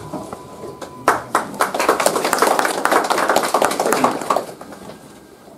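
A small group of people clapping, starting about a second in and dying away after about four seconds.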